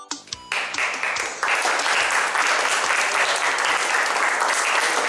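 A small group clapping and applauding, starting about half a second in as the last notes of the song die away.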